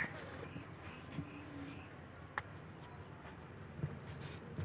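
Kitchen knife peeling a raw potato by hand: faint scraping with a few light clicks.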